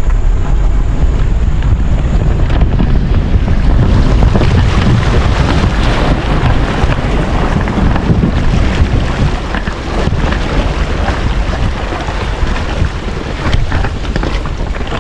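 Pickup truck driving through creek water: a loud, steady rush of water splashing and surging around the truck over a heavy low rumble. The rush eases a little in the second half.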